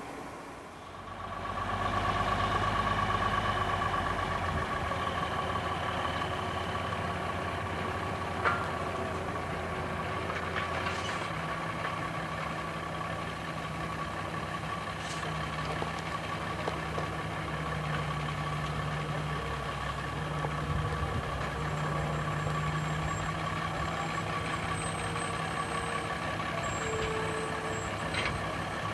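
Heavy diesel engines of a log loader and a logging truck running steadily. The sound swells up about a second in, and the engine pitch shifts about eleven seconds in as the truck pulls up to the loader.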